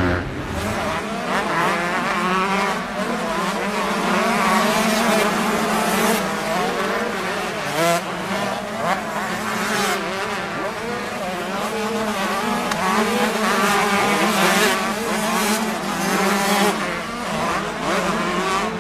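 Several 250cc motocross bikes out on track together, their engines revving up and down in overlapping waves as riders accelerate and shut off through the corners.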